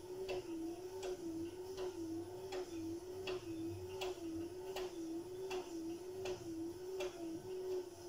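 Front-loading washing machine running a wash cycle, laundry tumbling in the drum: a steady motor hum whose pitch wavers evenly up and down, with a short tick about every three-quarters of a second.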